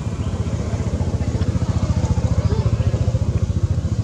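A small engine idling, a rapid, even low pulsing that swells a little near the middle.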